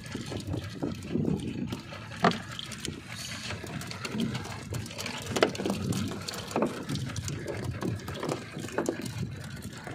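Sea water lapping and sloshing against a small boat's hull, with several sharper slaps of waves breaking against it.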